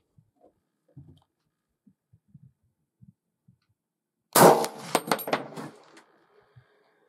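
A single loud gunshot about four seconds in, a deer hunter's shot at a whitetail buck, its echo dying away over about a second and a half. A few faint soft knocks come before it.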